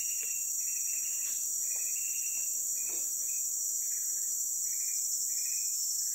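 Steady high-pitched insect chorus, with a string of short, softer calls repeating a little under twice a second.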